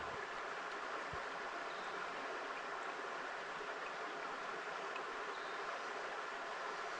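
Steady rushing of a small forest creek flowing over rocks.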